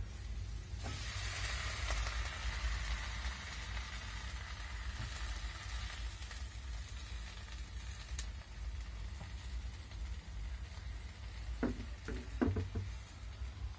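Water spinach hitting hot oil in a wok and sizzling, starting about a second in and easing off after a few seconds as it is stir-fried with a metal spatula. A few short knocks near the end.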